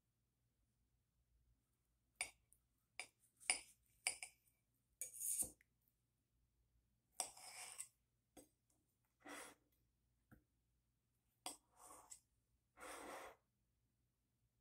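A knife cutting through a dragon fruit on a plate: a few sharp clicks and taps of the blade against the plate, then several short, soft rasping sounds.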